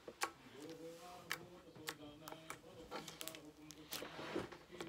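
Purple cloud slime being squeezed and pressed by hand on a wooden tabletop, giving faint scattered little clicks and squishes.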